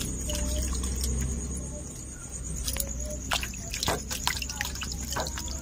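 New potatoes being washed by hand in water in a steel bowl: splashing and dripping, with a run of small sharp splashes and knocks from about halfway in. A steady high thin tone sits behind it.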